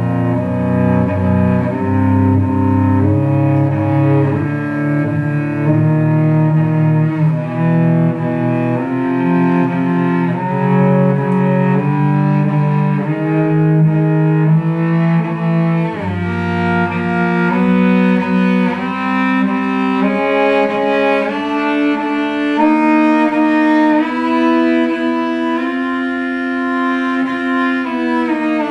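Solo cello bowing double stops in perfect fourths, moving chromatically from pair to pair: an exercise for the left hand's basic intonation. Each pair of notes is held about a second, and near the end the held pair glides down in pitch.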